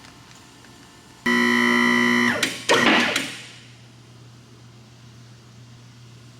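A sudden, loud, distorted guitar-like chord held for about a second, then a loud sweeping whoosh that dies away. A steady low hum runs underneath.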